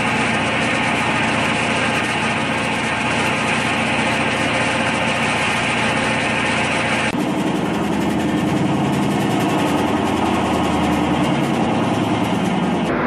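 Horizontal stainless-steel centrifuge running, a steady mechanical whir from its spinning drum and electric drive motor. About seven seconds in, the sound changes: the high hiss falls away and a lower hum comes up.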